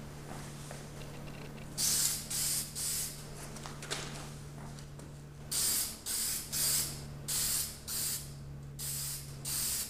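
Aerosol can of Brite Touch general-purpose primer spraying onto a metal ATV rim in short hissing blasts of about half a second each. There are three blasts, a pause of about two seconds, then about seven more in quick succession.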